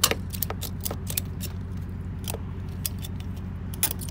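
Metal ratchet buckle on a boat-trailer tie-down strap clicking and clacking irregularly as it is worked snug, with the loudest clack right at the start and a quick pair near the end. A steady low hum runs underneath.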